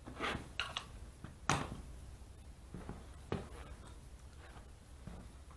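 A few scattered knocks and rustles of objects being handled, the sharpest about a second and a half in and another near the middle, over a low steady hum.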